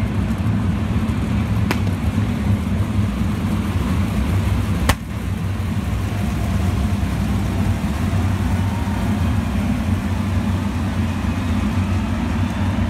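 A field of 410 sprint cars' methanol V8 engines running together at low speed, a steady low-pitched mass of engine sound. A single sharp crack stands out about five seconds in.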